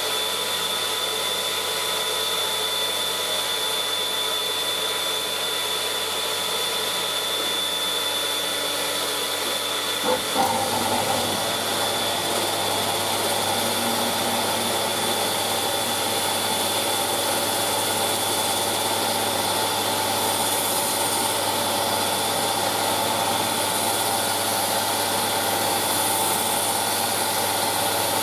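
Mill-drill spinning a homemade sanding drum, with a Vax vacuum running steadily for dust extraction and giving a constant high whine. About ten seconds in, a piece of wood is pressed against the drum and the rougher noise of sanding joins in.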